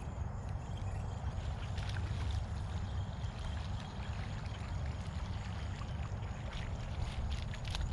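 Water splashing as a hooked fish thrashes at the surface while it is reeled in toward the bank, with short splashes about two seconds in and again near the end. Under it runs a steady low rumble and a faint, steady high insect whine.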